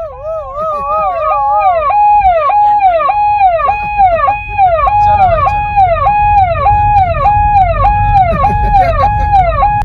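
Electronic siren wailing up and down in quick repeated cycles, switching from a fast warble to a steady rise-hold-fall about two seconds in, over the low rumble of the car driving.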